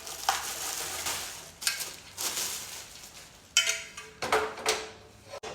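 Packaging rustling while a Ninja indoor grill is unboxed, then a few knocks and clatters from its hard parts being handled, starting a little past halfway.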